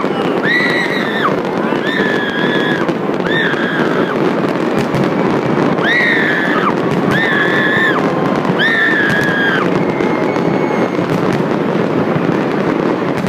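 Fireworks display crackling and popping continuously, with a series of short high whistles, about eight in the first ten seconds, each holding one pitch for under a second.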